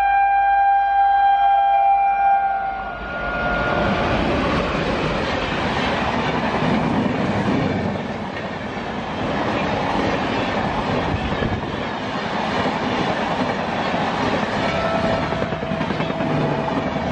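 Electric locomotive horn sounding one long chord that cuts off about two and a half seconds in. It is followed by Shatabdi Express passenger coaches passing close at speed: a steady rush of wheel and air noise with clickety-clack over the rail joints.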